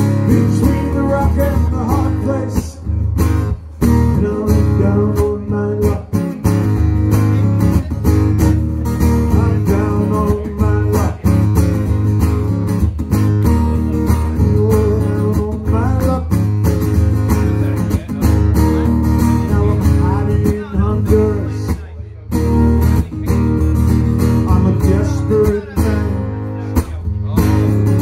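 Amplified acoustic guitar strummed live, a continuous instrumental passage.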